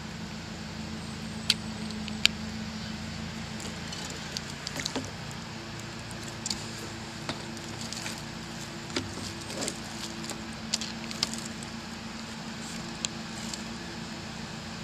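Small splashes and scattered short clicks of water being stirred as a hooked bass is held by the lip at the surface and unhooked, over a steady low hum.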